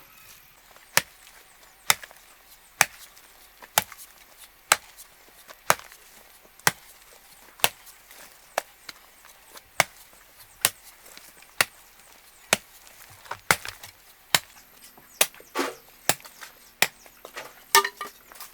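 Sharp chopping blows with a hand tool, evenly spaced about one a second, falling a little out of rhythm with some closer-spaced strikes near the end.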